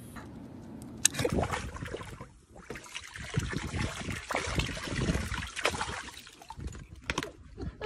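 Water from a running garden hose spraying and splashing into a paddling pool, with irregular splashes as a dog thrashes in the water. It starts about a second in.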